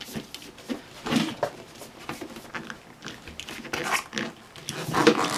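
A Pirelli racing slick being forced by hand and foot over the rim of a Marchesini magnesium wheel: irregular rubbing and scuffing of the rubber bead against the rim, loudest near the end.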